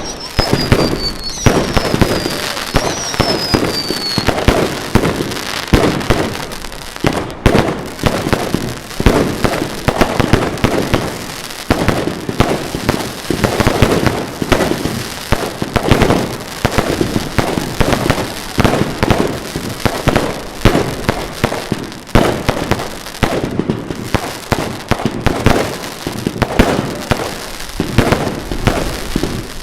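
Fireworks going off in a continuous barrage of bangs and crackles. In the first few seconds, high whistles fall in pitch over the bangs.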